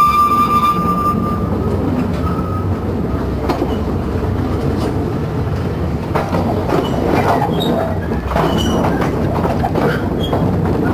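Narrow-gauge train hauled by a Hunslet locomotive running along the line, heard from a wagon: a steady low rumble from the engine and wheels, a brief squeal from the wheels in the first second, and the wheels clicking over rail joints and pointwork several times.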